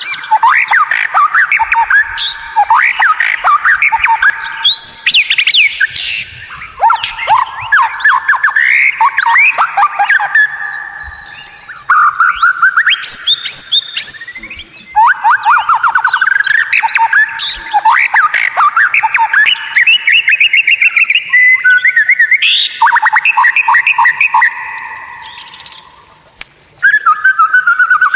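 White-rumped shama (murai batu) singing: long phrases of rapid repeated notes, trills and whistled glides, broken by short pauses.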